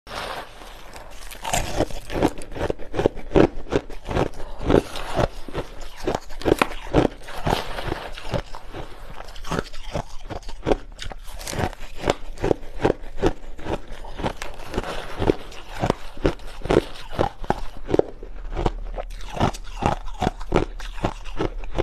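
Close-up crunching of crushed ice being bitten and chewed, a dense run of sharp, irregular crunches several times a second.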